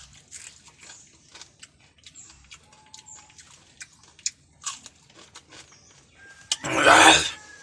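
Mouth-close eating sounds: a run of small crisp crunching clicks from biting and chewing food with chili. Near the end there is a loud, noisy rasping burst lasting under a second.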